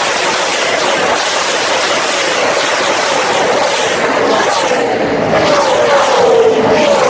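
A pack of NASCAR stock cars' V8 engines passing at full speed, several engine notes overlapping and each dropping in pitch as the car goes by; loudest about six seconds in.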